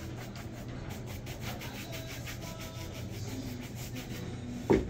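Shoe shine brush rubbing back and forth over a shoe in quick, even strokes, about five or six a second. A single sharp knock comes near the end.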